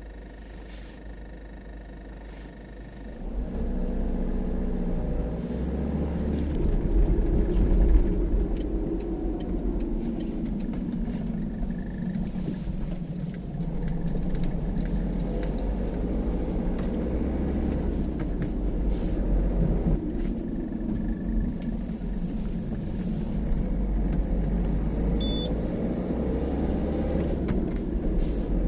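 Cabin sound of a 2012 Peugeot 308 SW diesel: quiet at first, then pulling away about three seconds in and driving on, the engine note rising and falling through the gears over road rumble. A faint high squeal is heard during the quiet opening and briefly twice more; this is the intermittent squeak the owner later traced to a loose plastic air deflector in the front left wheel arch.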